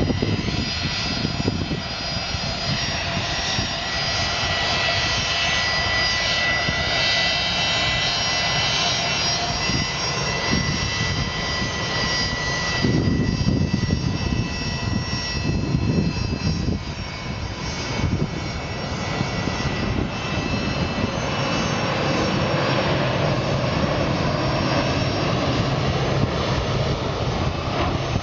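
Jet airliner engines running: a steady high whine over a broad rumble. About halfway through, the whine fades and a deeper rumble takes over.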